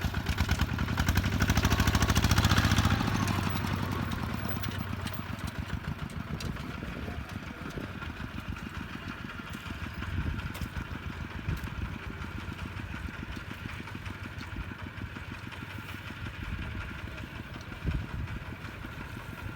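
Kubota ZT-150 single-cylinder diesel engine of a two-wheel hand tractor running with its rhythmic knocking pulse, loud for the first three seconds or so, then settling quieter.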